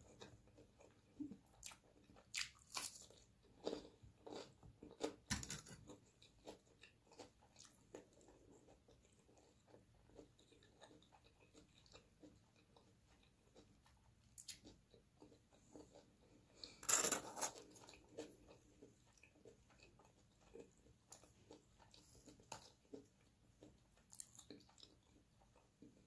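Close-miked eating sounds: crunchy bites into raw cucumber and chewing, with small wet mouth clicks in between. The loudest crunch comes about seventeen seconds in.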